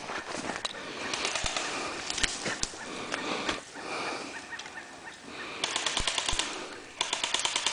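Airsoft guns firing on full auto: two rapid bursts of sharp clicking shots, each about a second long, starting near the end. Before them, scattered clicks and rustling.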